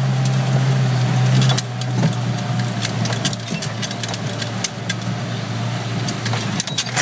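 Off-road 4x4's engine running, heard from inside the cabin, with constant rattling and clinking of loose parts as the vehicle bounces along a rough dirt track. The engine hum becomes quieter about a second and a half in.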